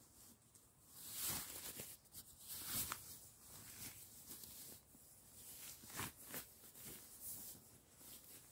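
Sleeping bag fabric rustling and swishing as a person shifts inside it and pulls it up around the shoulders. It comes as a string of faint, uneven rustles, the loudest between one and three seconds in and again about six seconds in.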